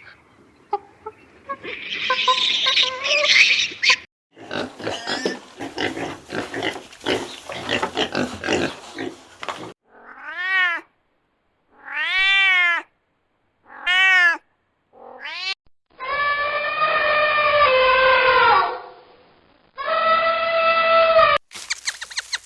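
A series of animal calls: a rough, noisy stretch, then four short calls that each rise and fall in pitch, then two longer calls.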